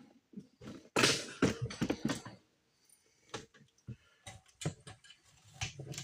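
Clicks and knocks from hands handling metal parts and tools: a quick cluster of clattering about a second in, then scattered taps.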